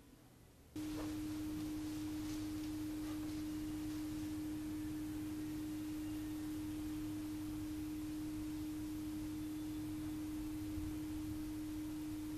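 A steady low hum on a single pitch, starting suddenly about a second in after near silence and holding unchanged, with faint room noise under it.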